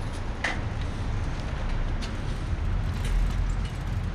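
Bicycles setting off along a brick street: a steady low rumble that grows heavier about three seconds in, with a few light clicks.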